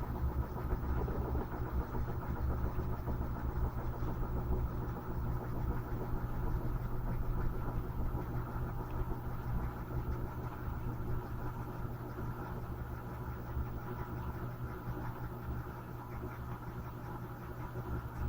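Electrolux LM13Q top-load washing machine humming steadily with a low rumble after its final spin, slowly getting quieter in the second half as the drum winds down.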